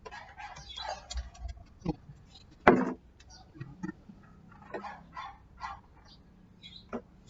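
Irregular clicks and knocks of electric fan parts being handled and fitted together, with one sharp knock nearly three seconds in.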